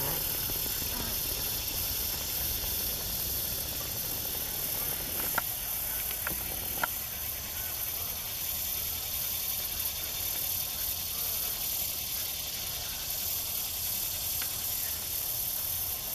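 Steady high-pitched hiss of marsh ambience, with a few faint clicks between about five and seven seconds in.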